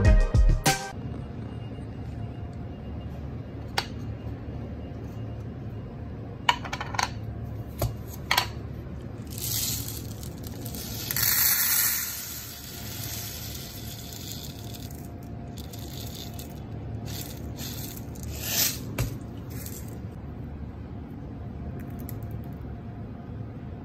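Dry mung beans poured from a plastic tub into a measuring cup, rattling in a few short rushes, the longest a little after the middle. Scattered sharp clicks and taps of the plastic container and cup.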